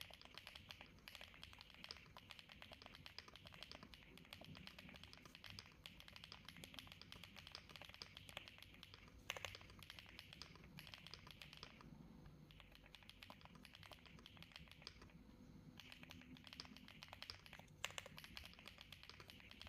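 Rainy 75 mechanical keyboard in stock form being typed on continuously: a faint, dense run of key clacks, with two louder strikes standing out about halfway through and near the end.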